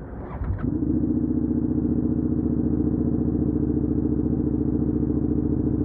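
Suzuki SV650X's V-twin engine idling steadily. It comes in abruptly just under a second in, after a few short clicks.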